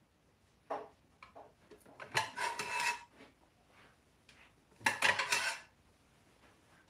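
Ceramic plates clattering and clinking as they are taken out and handled, in two main bouts about two and five seconds in, the first with a short ring.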